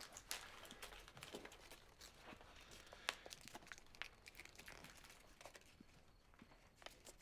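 Faint rustling with scattered small clicks and taps, the sound of things being handled and moved about by hand.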